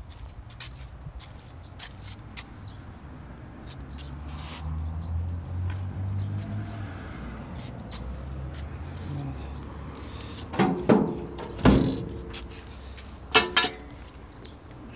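Birds chirping outdoors, with a low rumble swelling and fading in the middle. Near the end come several sharp metallic clanks with a brief ring, the loudest sounds.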